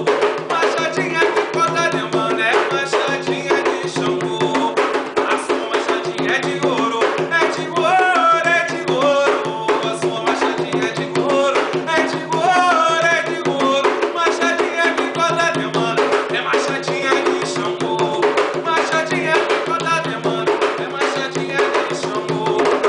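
Atabaque hand drums playing a fast, steady rhythm, with voices singing a ponto, an Afro-Brazilian religious chant, over them.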